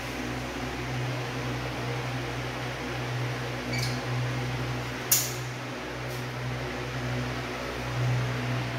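A steady low hum over an even hiss, with one sharp click a little after five seconds in and fainter clicks shortly before and after it.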